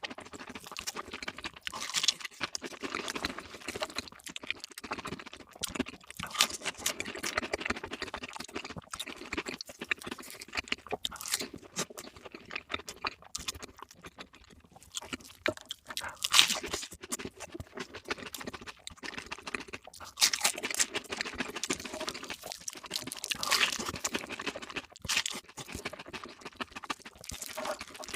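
Close-miked chewing and crunching of crispy fried food, a rapid run of crisp crunches that eases off briefly about halfway through.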